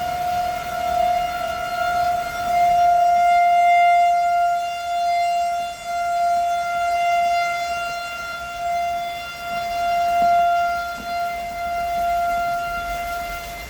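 Outdoor civil-defense warning siren sounding a steady, unchanging tone. The siren swells and fades in loudness every few seconds.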